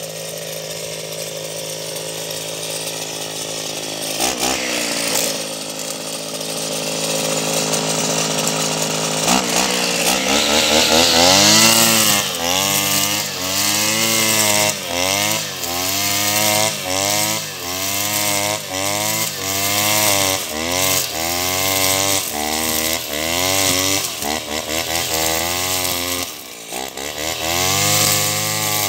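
Backpack brush cutter's small petrol engine running steadily at first. From about nine seconds in it revs up and down over and over, about once a second, as it is throttled with each swing through the grass.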